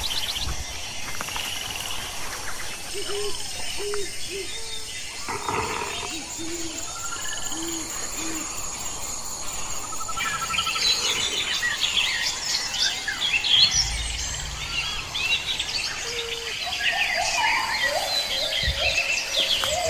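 Wild birds calling: a short low hooting note repeated about six times in the first half, then many high chirps and trills overlapping through the second half.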